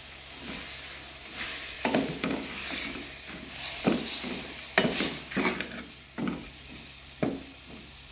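Wooden spoon stirring boneless mutton pieces in a metal karahi, scraping against the pan in a dozen or so irregular strokes, over a faint sizzle of the meat frying.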